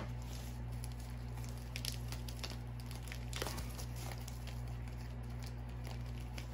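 Faint rustles and clicks of a diamond painting kit's packaging being handled and opened, the clearest about two and three and a half seconds in, over a steady low hum.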